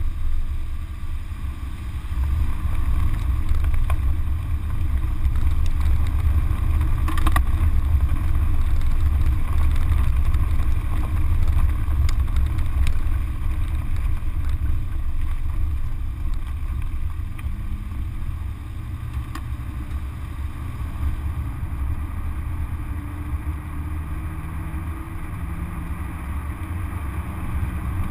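Car driving on a gravel road, heard from a camera mounted outside by the front wheel: a steady low rumble of tyre and road noise and air buffeting the microphone, with a few sharp ticks of gravel. The engine note is faintly audible under it in the second half.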